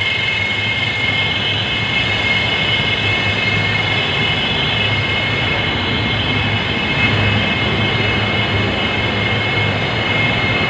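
Air handling unit blower fans running: a loud, steady rush of air with a whine of several high tones over a low hum.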